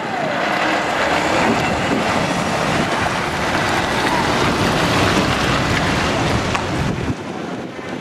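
Volvo FH tractor unit pulling a loaded low-loader trailer drives past close by: engine running and a steady heavy rumble of tyres and trailer, which drops off sharply about seven seconds in as it moves away.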